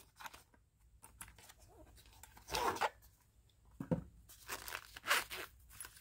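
Paperboard knife box being slid open and its contents handled: a few short, quiet scrapes and rustles of cardboard and packaging.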